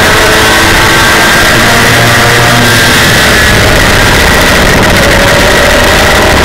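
Super mini truck's race engine running hard at track speed, heard from inside the cab, very loud, its pitch shifting a little as the truck goes through the turn.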